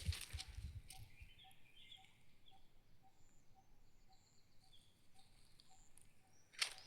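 Faint outdoor birdsong: short high chirps here and there over a soft note repeated steadily about twice a second. A few low thumps in the first second and a sharp click near the end.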